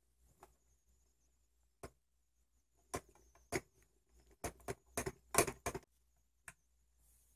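Plastic toys being handled and set down on a tabletop: a scatter of light taps and clacks that bunch into a quick clatter of knocks a little past the middle.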